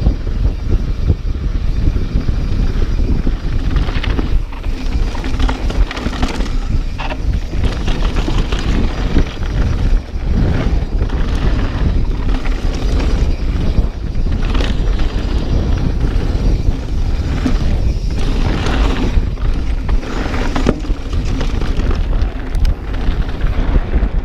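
Mountain bike descending a wet trail at speed: wind rushing over the microphone over the tyre noise and rattle of the bike, with frequent knocks as it hits bumps.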